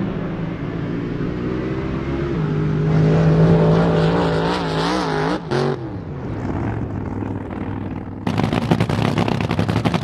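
Supercharged drag boat engines running hard, their pitch wavering as the boats race across the water. About eight seconds in it switches abruptly to a drag boat's blown engine idling close by, loud and choppy.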